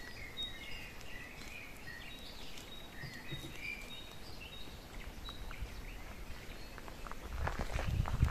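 Small birds chirping with short, high calls through the first half, over a faint outdoor background. Near the end a louder low rumble with a run of knocks comes in.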